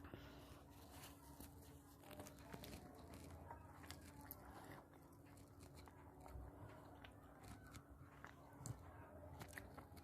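A person chewing and biting food close to the microphone, with many small, irregular wet mouth clicks and smacks.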